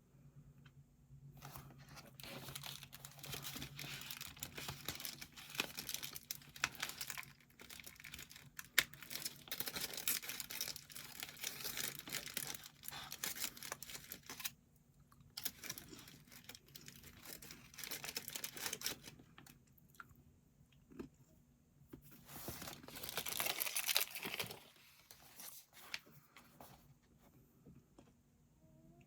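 Close crinkling and rustling: a long stretch of it, then a pause, then a shorter, louder stretch near the end.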